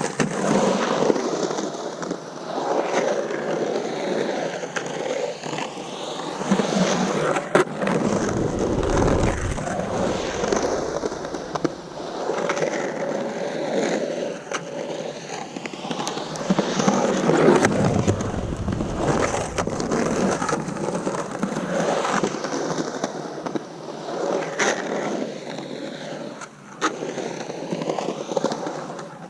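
Skateboard on Santa Cruz Slime Ball Vomits 97A urethane wheels rolling and carving around a skatepark bowl: a continuous rolling noise that swells into a deeper rumble twice, about eight and seventeen seconds in, with a few sharp clicks.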